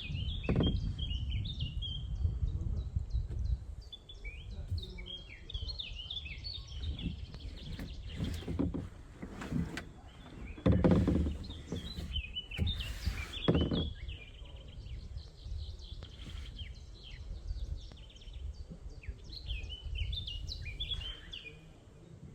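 Small birds chirping and twittering in quick bursts of high notes, with pauses between bursts, over a steady low rumble. A few dull thumps come near the middle and are the loudest sounds.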